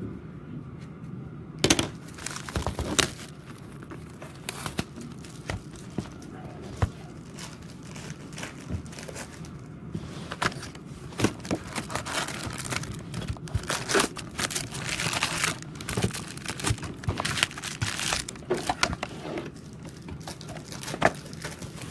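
Wrapping of a Topps Chrome baseball card box and its packs being torn open and crinkled, with many sharp crackles throughout.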